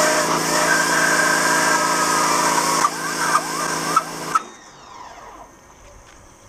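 Pressure washer running, its pump humming steadily under a hissing water jet that blasts grime off a GTD-350 turboshaft's open gearbox casing. The spray cuts in and out a few times, then stops about four and a half seconds in.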